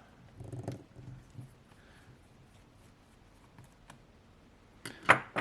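Faint scattered small clicks and light taps of a laptop being taken apart by hand, small tools and plastic parts being handled, with one short louder sound near the end.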